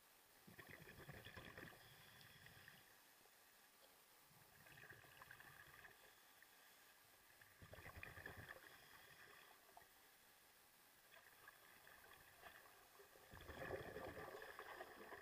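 Scuba regulator exhaust bubbles from divers breathing out, heard from inside the camera's sealed underwater housing: about five faint bubbling bursts, one every three seconds or so, the loudest near the end.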